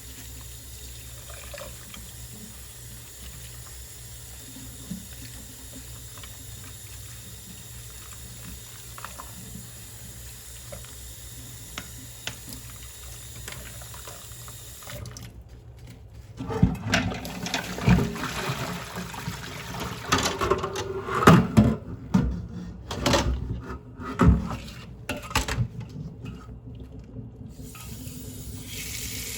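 Kitchen tap running steadily into the sink. About halfway through the water stops, and dishes and utensils clatter and knock against each other in the sink for about ten seconds. Water runs again near the end.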